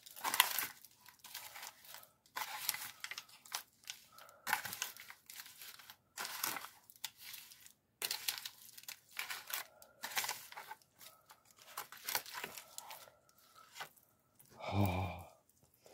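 Disposable aluminium foil pan crinkling in short, irregular bursts as hands toss and mix sugar-coated chicken cubes in it.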